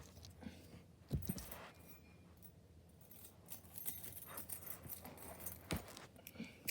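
Small metal clicks and rattles from handling a small TSA luggage padlock and lockpicking tools, with a couple of sharper knocks.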